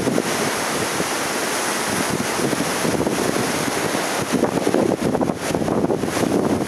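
Gusty tropical-storm wind buffeting the microphone over the steady wash of heavy surf. The gusts grow stronger about two-thirds of the way through.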